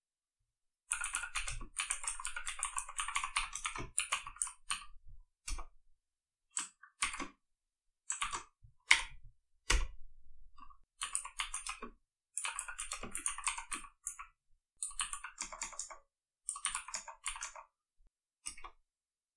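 Typing on a computer keyboard: quick runs of keystrokes broken by short pauses, with a few single, harder key presses, the loudest a little past halfway.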